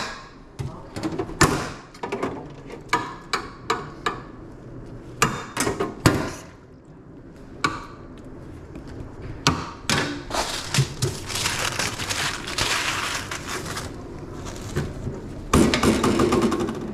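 A metal fork and serving utensils clinking and knocking against stainless-steel steam-table wells and lids while hot dogs are lifted from the water and topped: a string of sharp clinks, with a longer scraping rattle in the middle and a louder one near the end.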